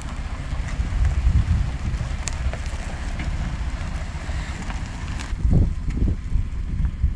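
Wind buffeting the microphone outdoors: an uneven low rumble that swells in gusts about a second in and again near the end, with a few faint clicks.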